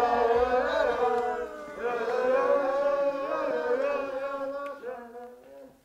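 A voice singing in a slow, wordless chant, with long sliding notes that die away near the end.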